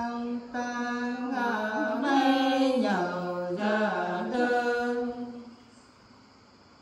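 Women singing a Nùng folk song without accompaniment: one long held phrase that slides down in pitch and back up, ending about five and a half seconds in.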